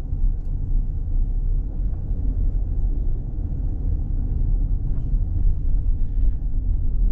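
Steady low rumble of a car driving at low speed: tyre and engine noise.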